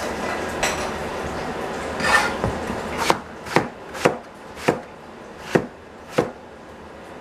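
Cleaver chopping eggplant on a plastic cutting board: six sharp knocks about half a second to a second apart, starting about three seconds in. Before them a steady hiss runs, and it stops as the chopping begins.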